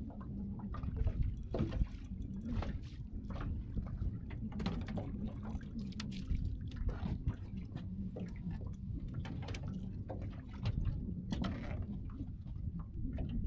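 Small waves lapping and slapping against the boat's hull over a steady low rumble, with scattered small clicks and knocks throughout.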